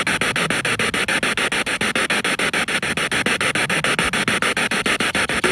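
Spirit box: a scanning radio sweeping through stations, played through a portable speaker. It gives a steady hiss of static chopped about ten times a second as it jumps from station to station.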